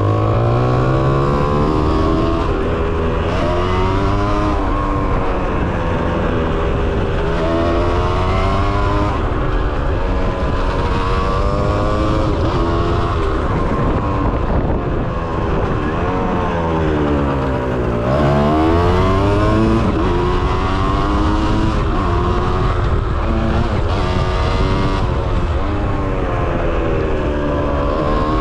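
Kawasaki KX 125 two-stroke single-cylinder engine under way, its revs climbing and dropping again and again as the bike accelerates and shifts, with one sharp drop and climb a little past halfway.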